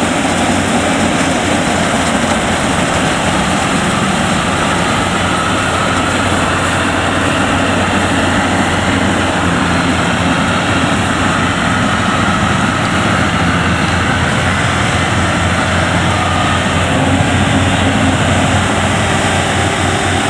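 Yanmar grain-tank rice combine harvester running steadily while harvesting rice, its engine a constant loud drone under load.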